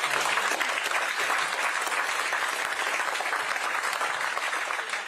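Audience applauding, dense steady clapping.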